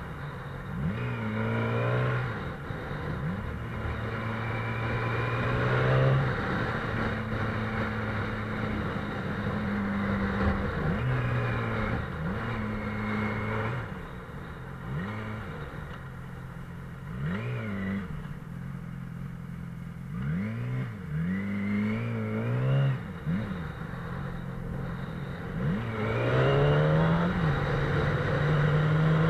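Sport motorcycle engine heard from on the bike, its note holding steady and then repeatedly rising and falling as the throttle is opened and closed, over a steady rush of wind. Near the end the engine note climbs steadily.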